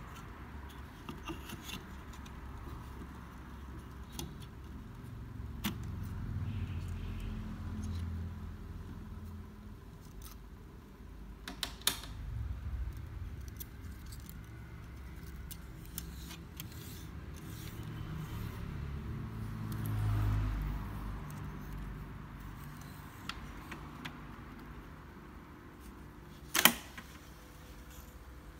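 Teac A-6010 reel-to-reel tape deck with its tape transport running: a low mechanical rumble that swells and fades, scattered light clicks, and one sharp click near the end.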